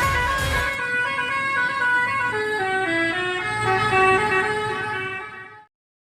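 Bus telolet horn playing a tune of stepping multi-tone notes, with a low rumble under it for the first second; the horn fades out about five and a half seconds in.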